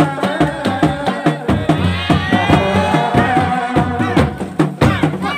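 Sundanese reak ensemble playing: dogdog hand drums beating a fast, interlocking rhythm under a wavering, bending tarompet melody.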